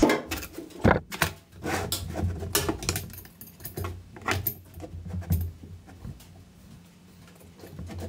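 Hand tools and metal fittings clicking and knocking while a battery is fitted and its terminals fastened: an irregular run of sharp metallic clicks, the loudest about a second in, growing sparser in the second half.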